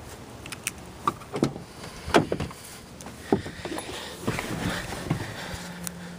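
Clunks and knocks of a pickup truck's door and cab, as of the door being opened and someone getting in, with a steady low hum starting near the end.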